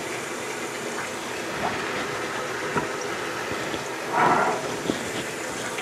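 Kitchen faucet running, its stream splashing into a stainless steel sink as a whole raw fish is rinsed under it, with a few small knocks. A brief louder noise comes about four seconds in.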